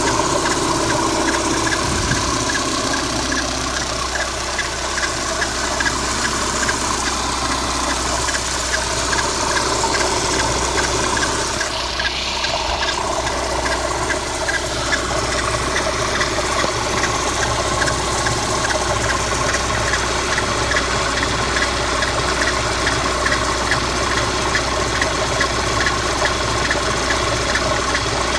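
VAZ-2110 engine idling with the alternator belt removed, carrying an extraneous noise whose source the owner is still hunting: the tensioner and idler rollers are new and the water pump is not making it. A light, regular ticking of several ticks a second runs through the engine sound from about halfway in.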